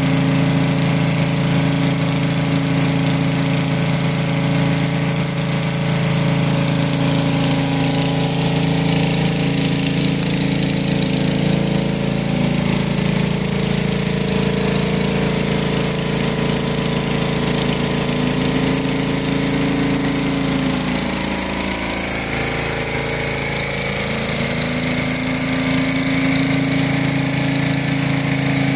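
Pressure washer engine running steadily while a rotary surface cleaner hisses as it jets water over concrete. The engine's pitch sags briefly about three-quarters of the way through, then comes back up.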